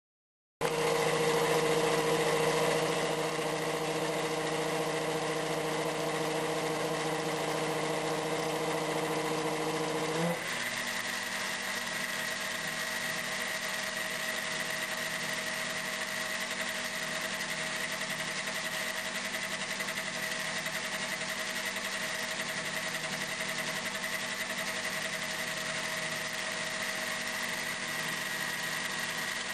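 Metal lathe motor and spindle running steadily, a mechanical hum with a constant whine. About ten seconds in the sound changes abruptly: the lower hum drops away and a steady higher whine carries on.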